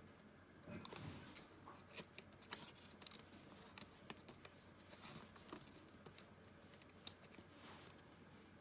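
Faint small clicks and short scrapes of hands working a new rubber drive belt around a wheel inside a personal cassette player's tape mechanism.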